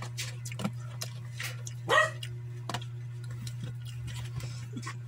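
A pet's single short, sharp bark-like call about two seconds in, over a steady low hum and scattered faint clicks.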